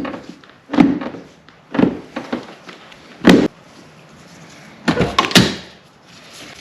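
Series of sharp knocks and thuds on a Volvo 240 wagon's door, roughly one a second, with a quick cluster of knocks near the end.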